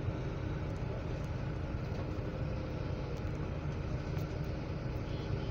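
Slow-moving road traffic: the engines of a tanker truck, a van and cars make a steady low rumble.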